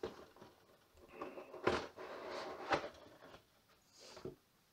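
Cardboard lid of a plastic model-kit box being slid off and set aside, a light scraping and rustling with two soft knocks near the middle.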